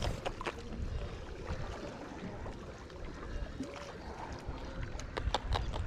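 Water lapping, with wind buffeting the microphone and scattered light clicks.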